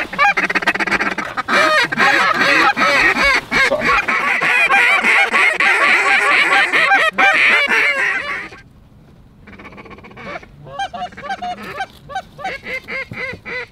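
Hand-blown goose calls imitating Canada geese, several rapid honks and clucks overlapping for about eight seconds, then dropping to fewer, quieter honks.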